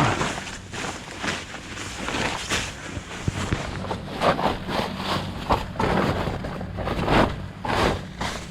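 Irregular rustling, knocking and shuffling of camping gear being lifted and handled while a camp is set up.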